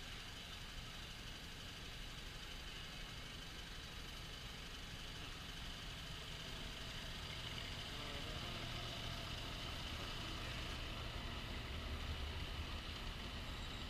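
The small engine of a ride-on miniature railroad train running steadily, growing louder about two-thirds of the way through.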